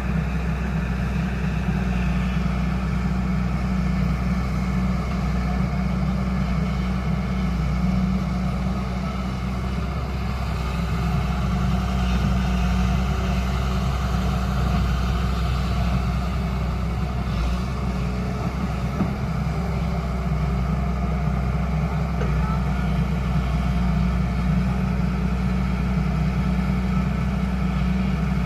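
Hyundai R210 Smart Plus excavator's diesel engine running steadily, a constant low drone that swells and eases slightly.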